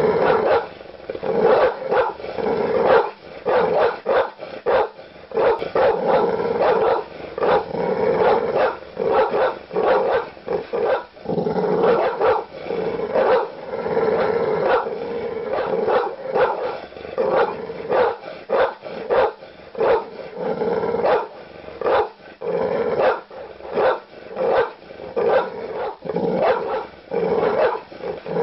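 Large dogs barking aggressively with deep barks, coming in quick, closely packed runs with almost no pause between them.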